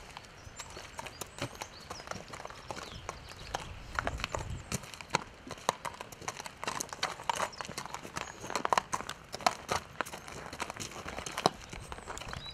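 A horse walking on gravel, its hooves crunching in an irregular run of steps, louder and closer from about four seconds in.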